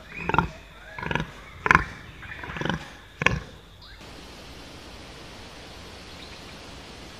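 Babirusa grunting: five short, harsh grunts, about one every two-thirds of a second, stopping about three and a half seconds in. After that comes a steady, even hiss of background ambience.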